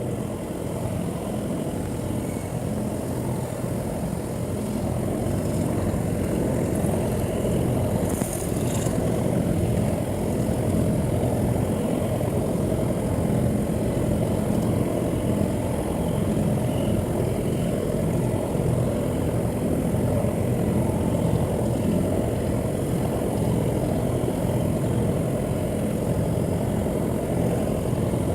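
A steady low engine-like rumble that grows over the first few seconds and then holds steady.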